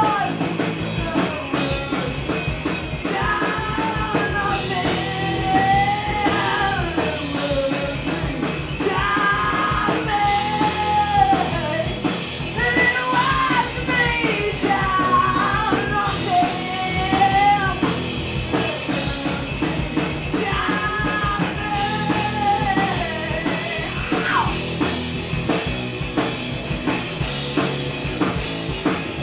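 A live punk rock band playing: electric guitar, electric bass and drum kit, with a singer belting out several phrases of held notes over them. The vocals stop about three-quarters of the way through while the band plays on.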